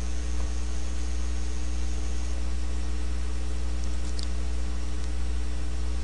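Steady low electrical hum under a constant hiss of background noise, with a faint high whine over the first couple of seconds and a brief faint tick about four seconds in.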